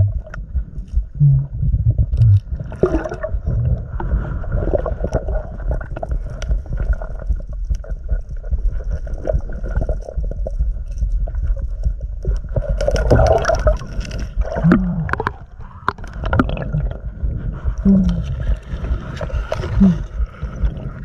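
Muffled underwater sound on a submerged action camera: a steady low rumble with gurgling, a few short low-pitched groans, and a louder burst of noise about thirteen seconds in. This is the unexplained 'strange sound' heard underwater during the dive.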